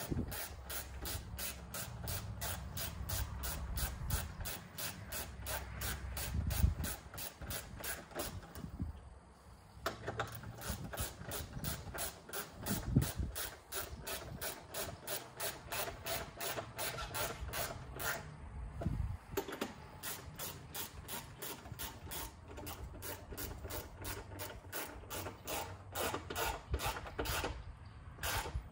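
Hand ratchet clicking in quick, even back-and-forth strokes, about four clicks a second, while tightening a clamp on the turbo intake pipe. The clicking breaks off briefly about nine seconds in and again near the end.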